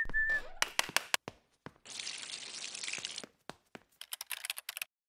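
Sound effects of an animated logo intro: the end of a short falling whistle, a quick run of sharp clicks, a hiss lasting about a second and a half, then a scatter of light ticks.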